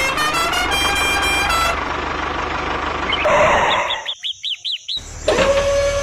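Truck sound effects: a horn tooting a few quick notes over engine rumble, then the engine running on. About four seconds in, birds chirp several times, and just after five seconds a steady whine begins.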